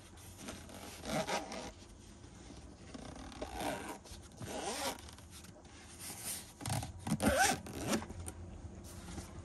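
Zip of a fabric-covered DJI Mavic drone carrying case being pulled closed around the case in several runs, the loudest near the end.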